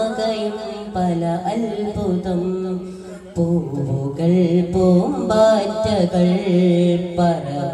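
Daff muttu performance: voices singing a devotional-style melody to the beat of daf frame drums struck in rhythm.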